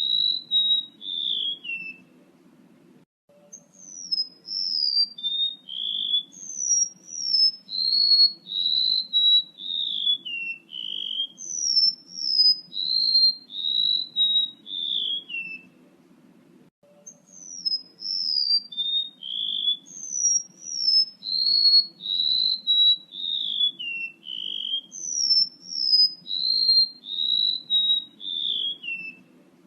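Recorded song of a male rementuk laut bird played as a lure: phrases of short whistled notes that slide down in pitch, each phrase of about a dozen notes, repeated about every thirteen seconds with a short pause between. A faint steady low hum runs beneath.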